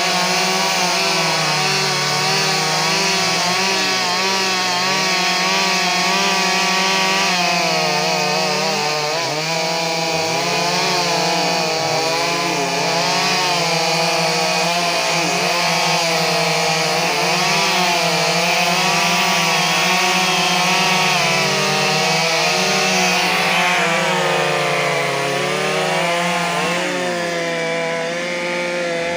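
Stihl 382 two-stroke chainsaw running at high throttle while cutting through wood to saw out a plank. Its engine pitch dips and recovers as the cutting load changes.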